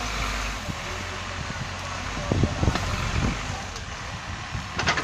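Caterpillar 424B backhoe loader's diesel engine running steadily while the backhoe arm swings and lifts its bucket, with a short sharp clatter near the end.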